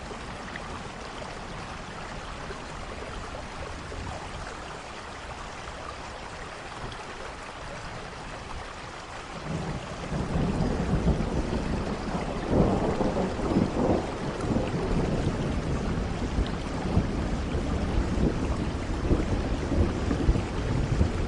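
Steady rain falling, with a low roll of thunder building about halfway through, swelling loudest a few seconds later and rumbling on to the end.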